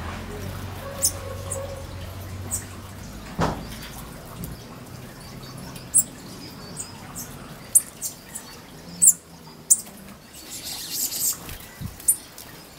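Small birds giving short, high chirps every second or two, coming more often and louder in the second half.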